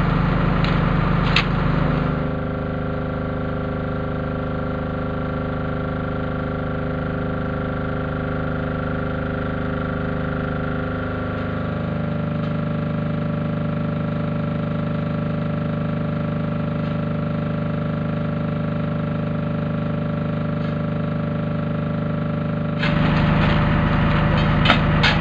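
Diesel engine of site machinery running steadily with a low drone. Its tone changes about halfway through, and near the start and the end the clatter and clicks of hand tools on the track are heard over it.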